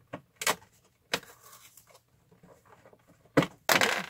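Hands opening a small cardboard door of an advent calendar box: a few light taps and rustles, then a louder, brief scraping rustle near the end as the flap is pulled open.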